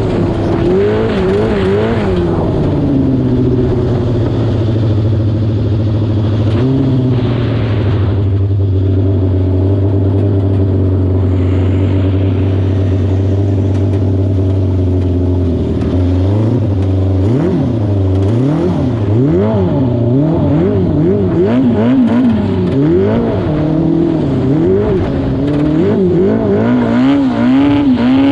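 Yamaha R6 600cc inline-four engine in a homemade ride-on lawn mower running. Its revs waver at first, hold steady for about twelve seconds, then from about halfway rise and fall again and again in quick swings.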